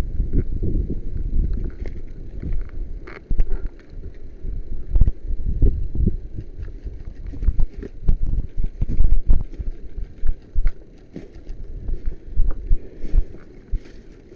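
Irregular low thumps and knocks with scattered sharp clicks: a player's footsteps and equipment knocking and rustling as they move.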